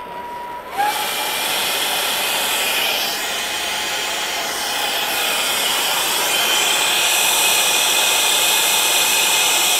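Air-acetylene B-tank torch flame burning with a steady, loud hiss that comes on suddenly about a second in, as the flame heats a copper pipe joint for brazing.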